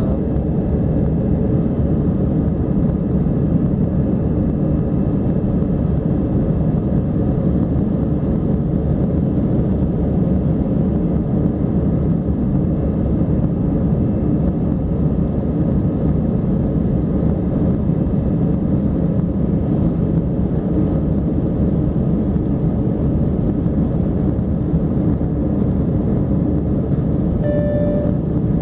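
Jet airliner cabin noise during the climb after takeoff: a steady engine and airflow rumble heard from inside the cabin. A brief clear tone sounds once near the end.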